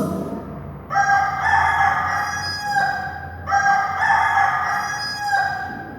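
Rooster crowing twice: two long cock-a-doodle-doo calls, the first starting about a second in and the second a moment after it ends.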